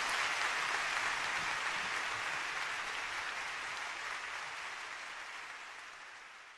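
Audience applauding, a dense even patter that starts strong and fades away gradually.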